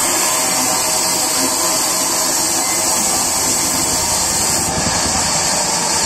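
Band sawmill running and sawing through a log: a steady, loud machine noise with a strong high hiss from the blade.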